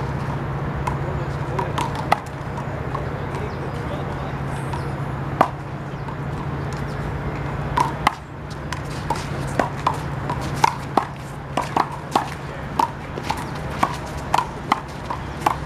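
Handball rally: sharp smacks of the rubber ball being hit by hand and striking the wall and court, scattered at first and then coming about twice a second in the second half, over a steady low hum.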